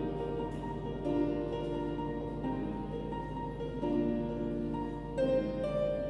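Choral music with accompaniment: several sustained notes held together as chords, moving to new chords every second or so.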